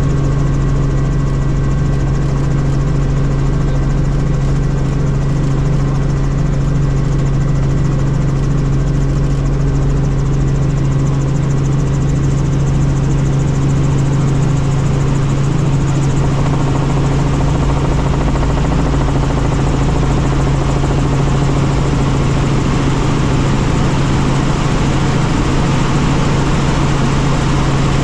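Helicopter in flight, its engine and rotors droning steadily: a deep, unbroken hum with fainter steady high tones above it.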